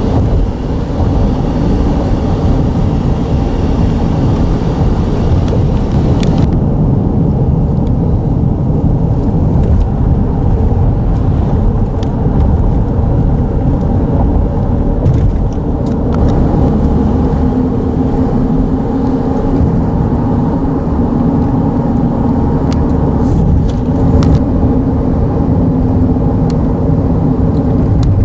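Road bridge vibrating under passing traffic: a loud, steady low rumble with a humming tone over it.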